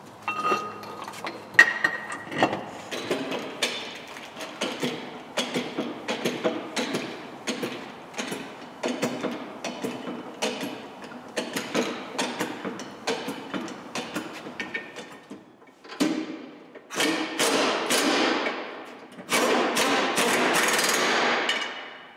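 Ratchet wrench turning bolts on the underside of a car's engine and gearbox: repeated short clicks, about two or three a second, then louder, faster runs of ratcheting in the last six seconds.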